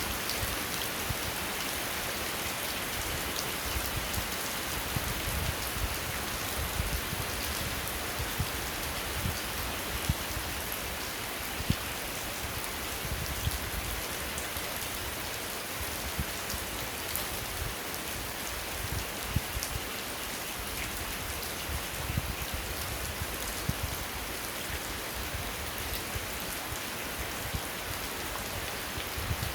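Steady rain falling, with louder individual drops striking close by at irregular moments.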